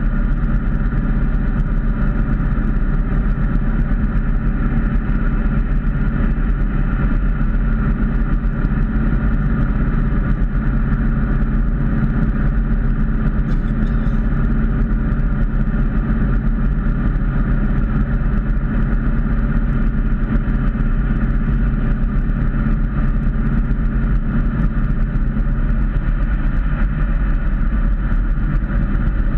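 Ford Mustang's engine and tyre noise heard from inside the cabin while cruising steadily at highway speed, an unchanging low engine note under road noise.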